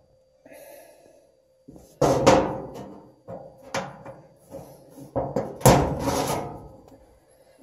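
A screwdriver prying at the plastic retaining clip on a dryer drum support wheel's metal shaft: a series of sharp knocks and clatters, metal on metal and plastic, the loudest about two-thirds through.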